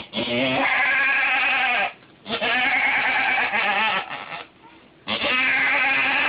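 A doe goat in labour bleating: three long, drawn-out calls of about two seconds each with short pauses between, while her second kid's head and forelegs are being delivered.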